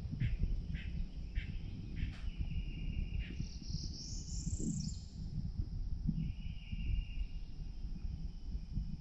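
Wildlife calling from the riverbank: a steady high-pitched trill, with short repeated chirps about twice a second for the first three seconds and a rising sweeping call near the middle. A low rumble runs underneath.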